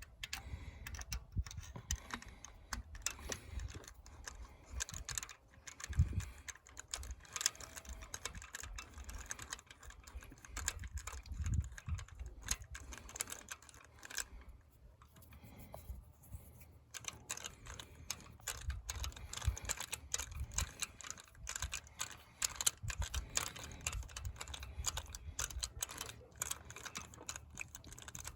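Rapid runs of light clicks from a socket ratchet being worked back and forth, with low knocks of tool handling, as a new spark plug is run down to hand tight.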